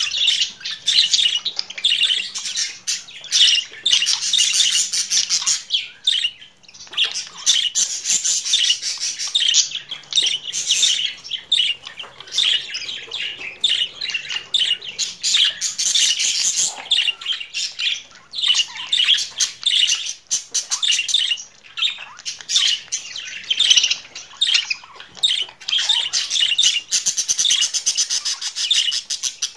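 Budgerigars warbling and chattering: a fast, nearly continuous run of chirps, clicks and squawks, with a short lull about six seconds in.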